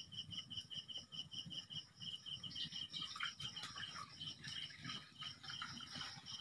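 Crickets chirping in a steady, rapid pulsed trill of about six pulses a second, with a faint low rustle underneath.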